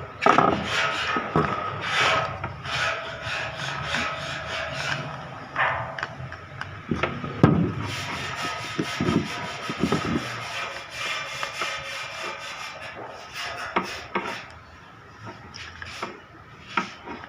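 A new angle-grinder carbon brush being sanded down by hand to fit, making irregular rasping, rubbing strokes.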